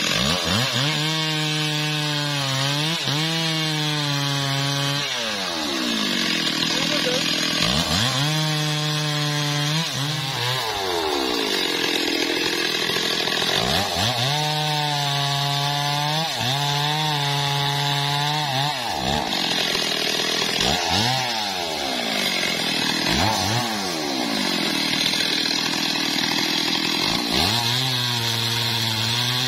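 Stihl MS 382 two-stroke chainsaw cutting through a mahogany log, the engine revving up to a high held pitch and dropping back toward idle about eight times.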